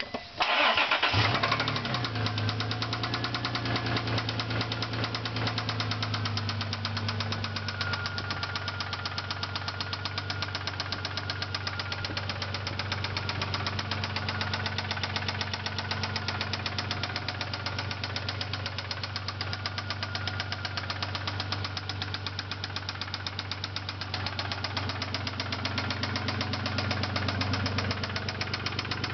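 1999 Isuzu Amigo's 3.2-litre V6 catching about a second in, then idling steadily with a fast, regular knock, which the owner suspects is a worn rod bearing rather than valve noise.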